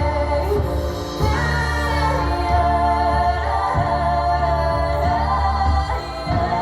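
A song with singing played loud through a sound system being tested, with heavy, prominent bass.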